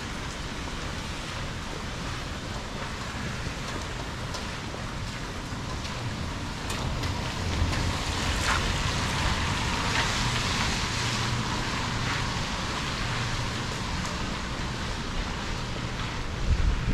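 Steady rain falling on a wet street, a continuous hiss with scattered sharp ticks of single drops, growing louder about halfway through, over a low rumble.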